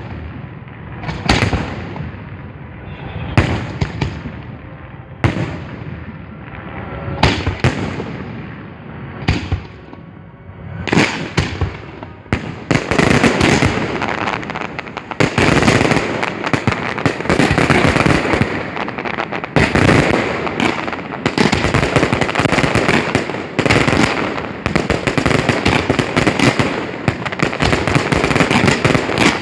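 Professional display fireworks firing at close range: single loud booms about every two seconds, then from about twelve seconds in a dense, rapid barrage of bangs and crackle that keeps going.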